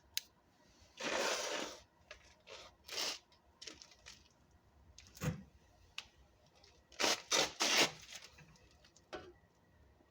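Hands rummaging and handling things while searching for a dropped part: a brief rustling scrape about a second in, scattered clicks and knocks, and a quick cluster of three sharper clatters near the end.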